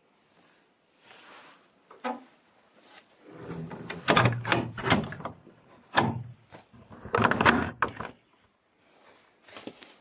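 Old wooden plank door of a log hut being handled and pushed open: a run of wooden knocks, scrapes and heavy thuds, loudest about four and seven seconds in, with a couple of sharper clicks.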